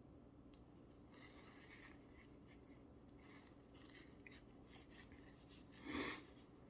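Near silence between sneezes: faint rustling and breathing, then one short, breathy burst about six seconds in.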